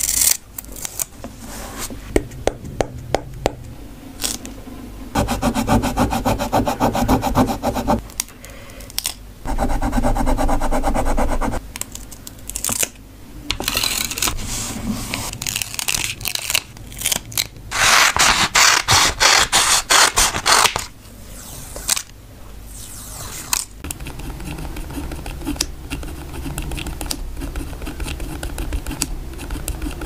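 Close-miked paper-craft sounds: scissors snipping washi tape with sharp clicks in the first few seconds, then several loud rasping stretches as washi tape is pulled and peeled from its roll. Near the end, quieter steady scratching of a pen writing on paper.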